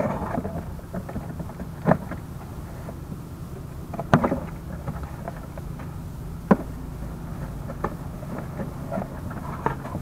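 Cardboard box being slit open with a knife and its flaps and contents handled: several sharp knocks and scrapes of cardboard, the clearest about two, four and six and a half seconds in, over a steady low rumble.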